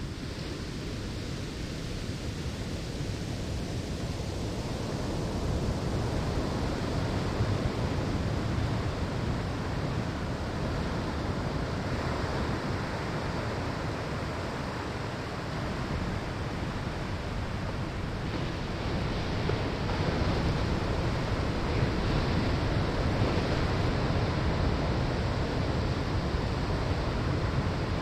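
Ocean waves breaking and washing up a sandy shoreline, a steady rushing surf that swells louder a few seconds in and again past the midpoint.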